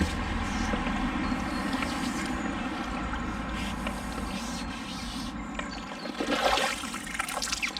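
Shallow river water splashing and trickling as someone wades through it, with louder splashing about six to seven and a half seconds in.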